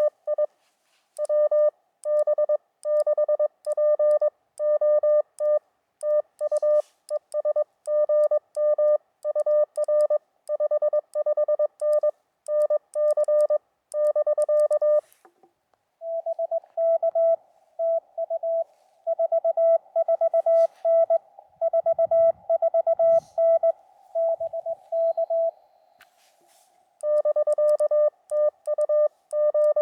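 Morse code tones from a portable ham radio transceiver: the operator's own keyed sidetone sends a run of dots and dashes for about fifteen seconds. Then a slightly higher-pitched tone with background hiss answers, another station coming back over the air. The operator's sidetone starts keying again near the end.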